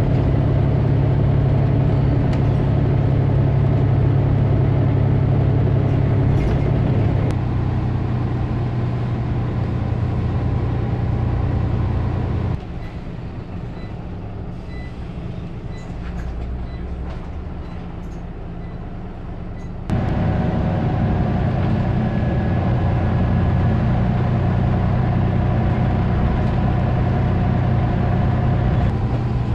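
Scania OmniCity single-deck bus heard from inside the passenger cabin on the move: a steady diesel engine drone with road noise. The engine note eases slightly about seven seconds in. About twelve seconds in the sound drops abruptly to a quieter, duller hum, and it comes back just as abruptly about seven seconds later.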